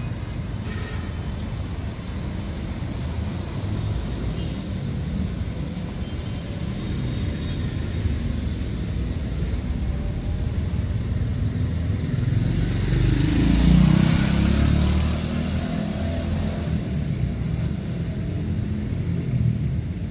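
Road traffic rumbling steadily, with one vehicle passing that grows loudest about thirteen to fifteen seconds in and then fades.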